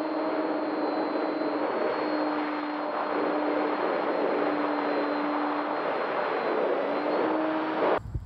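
Fixed-wing model UAV's propeller motor heard from its onboard camera during takeoff and climb: a steady droning whine under heavy wind rush, dipping briefly in pitch about two seconds in. It cuts off abruptly near the end.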